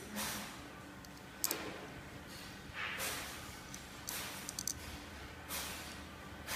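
A spring-assist folding knife being handled during assembly: soft rubbing and shuffling of the knife and hands, with small sharp clicks, one about a second and a half in and a quick run of three near the middle.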